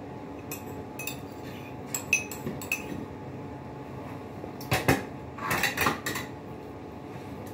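Metal fork clinking and scraping against a plate in short, separate taps over the first three seconds, then a louder run of clatter around five to six seconds in, over a steady low hum.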